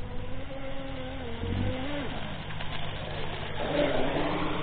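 Twin brushless electric motors of a Minicat 820 EP RC racing catamaran running, the pitch wavering up and down with the throttle, with a brief rush of noisier sound about four seconds in.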